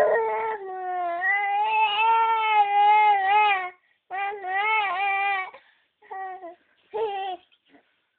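Baby crying: one long wavering wail of about three and a half seconds, a second wail of about a second and a half, then two short cries near the end.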